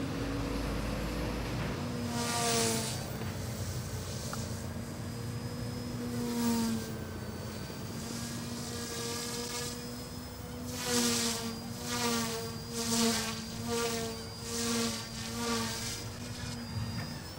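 OMP Hobby M1 mini RC helicopter's direct-drive brushless main and tail motors buzzing at high head speed in idle-up mode. The rotor buzz surges and falls with the manoeuvres, with a run of quick surges in the second half.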